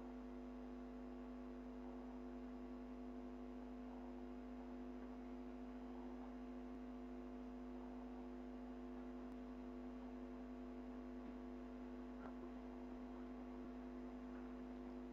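Steady electrical hum: several constant tones held without change throughout, with no other sound.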